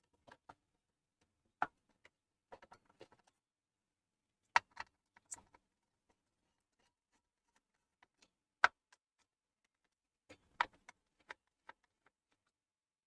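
Scattered sharp clicks and knocks of parts and tools being handled on a desktop PC tower, with two louder knocks about four and a half and eight and a half seconds in.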